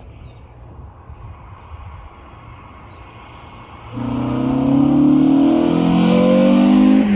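Renault Clio RS 172 with a KTEC induction kit and an InoxCar sport end muffler: at first a faint low engine hum, then from about four seconds in the engine comes in loud under hard acceleration. Near the end the car goes past, its pitch dropping as it passes.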